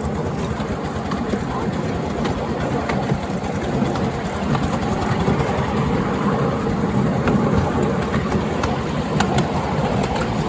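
Miniature railway train running along the track: a steady low rumble of the loco and carriages, with scattered faint clicks from the wheels.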